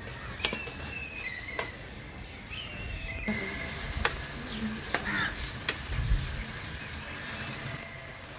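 A metal spoon stirring black chickpeas in a nonstick pan, scraping through them and clinking sharply against the pan about six times, over a light sizzle.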